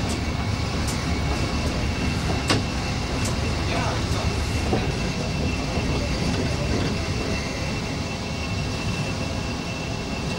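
DE II diesel-electric multiple unit running slowly along the track, heard from inside the cab: a steady low engine and running rumble with a constant high whine. A few sharp clicks come in the first few seconds, the loudest about two and a half seconds in, as the wheels pass rail joints.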